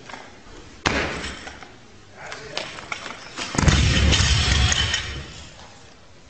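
A sharp thud about a second in, then about three and a half seconds in a loud, heavy crash lasting over a second as a loaded Olympic barbell with bumper plates comes down onto the lifting platform with the lifter.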